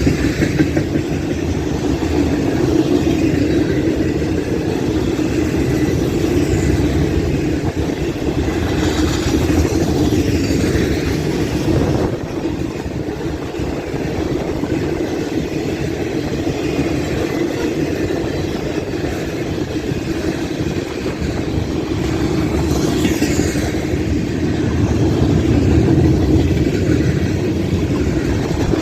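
Freight train's boxcars rolling past, a steady noise of steel wheels running on the rails that holds throughout, with wind buffeting the microphone.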